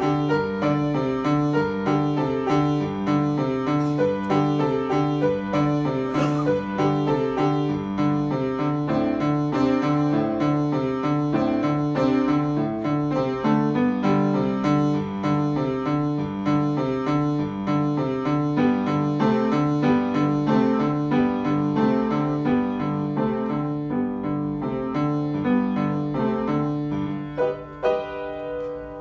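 Kawai grand piano being played: a melody over a steady, repeating bass figure, ending on a long held low note near the end.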